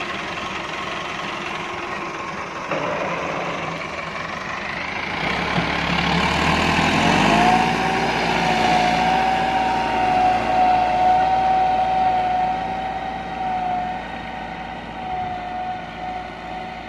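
Massey Ferguson 375's Perkins diesel engine running, revving up about six seconds in as the tractor pulls off with a cultivator in the ground. It then runs steadily under load with a steady high whine, growing fainter near the end as the tractor moves away.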